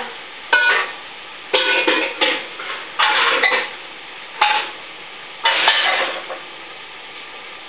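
Pots and pans clanking as cookware is pulled out and shifted around: about six separate clattering bursts, some with a short metallic ring.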